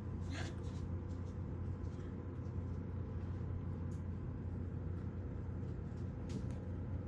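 Steady low hum of a household appliance's fan motor, with a few faint soft clicks.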